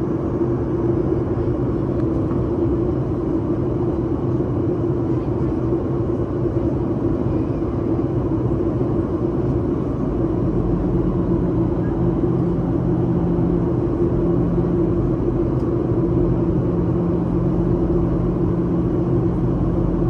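Steady airliner cabin noise during the descent: a constant rumble of engines and airflow with a steady hum, and a second, lower drone joins about ten seconds in.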